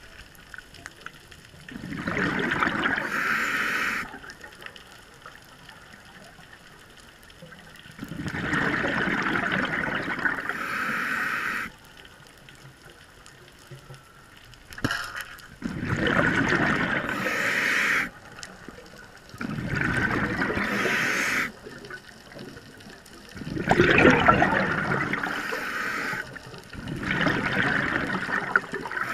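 Underwater breathing through a scuba regulator: six breaths a few seconds apart, each a rush of bubbles and hiss lasting two to three seconds.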